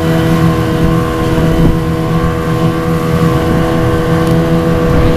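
25 hp Yamaha outboard motor on a small inflatable boat running steadily under way, an unchanging engine hum over a rushing noise of wind and water.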